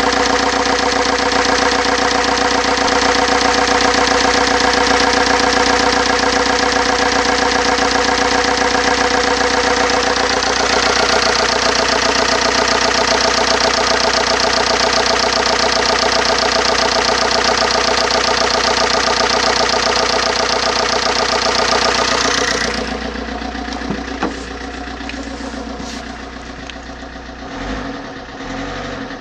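2014 VW Amarok's 2.0-litre twin-turbo four-cylinder diesel idling steadily at about 1000 rpm. About 22 seconds in it turns quieter and duller, now heard from inside the cab.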